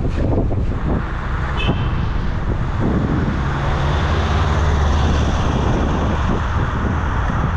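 Road traffic with a city bus's engine running close by, its low hum swelling in the middle and then easing, over a steady rush of street noise.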